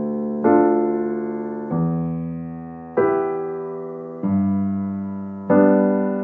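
Slow, calm keyboard music: sustained chords struck about every second and a quarter, each fading away before the next.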